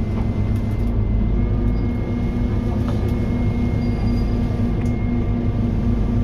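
Scania N230UD OmniDekka double-decker bus running, heard from inside the upper deck: a steady low engine and road drone with a thin high whine over it and a few light rattles from the body.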